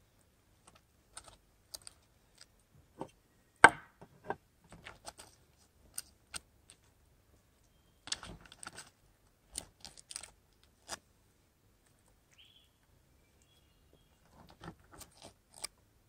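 Metal spoon scraping and tapping against aluminium foil while scooping food out of a foil packet, with the foil crinkling: scattered clicks and scrapes, the sharpest about three and a half seconds in, a busy patch around eight to nine seconds and another near the end.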